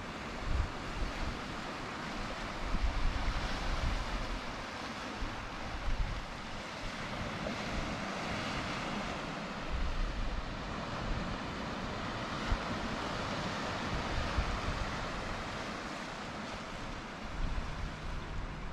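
Ocean surf washing over a rocky shore, a steady rush that swells and eases, with gusts of wind buffeting the microphone.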